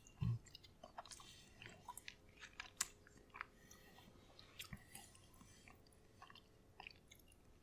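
A person chewing a mouthful of soft spaghetti in meat sauce, quiet wet mouth clicks and smacks, with one soft low bump just after the start.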